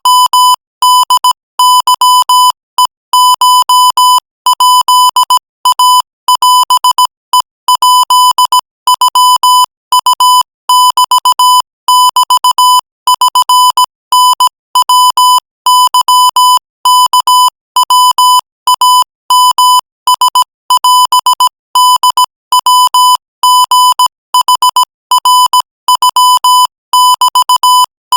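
Morse code sent at 20 words per minute: a single-pitch, buzzy electronic beep keyed on and off in rapid dots and dashes, spelling out text.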